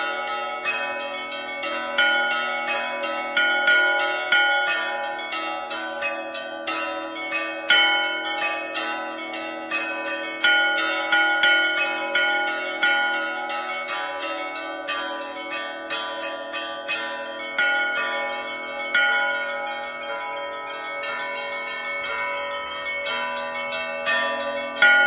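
Russian Orthodox monastery bells rung in a continuous festive peal (zvon): quick, dense strikes several times a second over the long, overlapping ringing of the bells.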